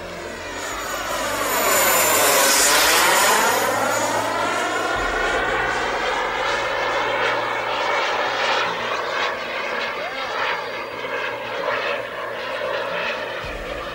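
Radio-controlled model jet's small turbine engine whining as the jet makes a fast low pass, loudest a couple of seconds in, with a whooshing tone that sweeps down and back up as it goes by. After the pass it settles into a steadier rushing sound as the jet flies on.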